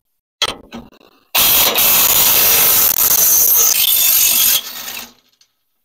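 A few light clicks, then a power tool runs loudly for about three seconds and stops suddenly as it backs out the bolt holding a sawmill carriage wheel; the bolt is stiff with sawdust.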